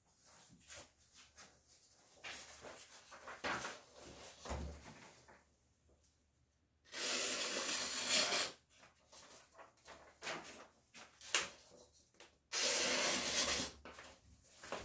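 Kitchen knife being worked on a sharpening stone: a run of short, uneven scraping strokes and clicks, with two longer, steady scrapes, one about seven seconds in and one near the end.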